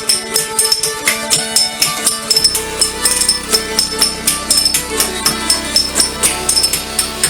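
Background music with a steady rhythm of tambourine-like shaken percussion over pitched instruments.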